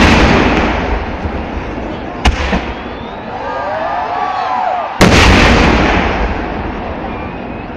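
Fireworks exploding in heavy blasts: one loud blast as it opens dies away slowly, a sharp crack follows a little over two seconds in, and a second heavy blast about five seconds in again fades out over several seconds.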